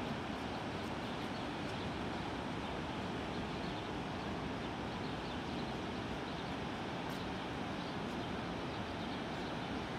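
A distant tram crossing a high steel arch bridge, heard as a steady, even rush with no distinct clicks or tones, blended with the flow of the river below.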